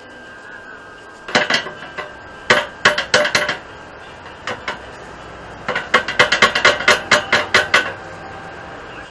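Steel tubing of a go-kart frame being struck metal on metal, as with a hammer, in several bursts of sharp taps; the last and longest is a quick run of light taps lasting about two seconds.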